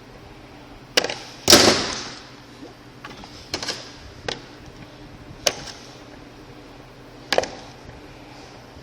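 Hand tools working on an e-bike battery's fuse holder: a few sharp clicks and knocks spread over several seconds, with one louder, longer scraping burst about a second and a half in.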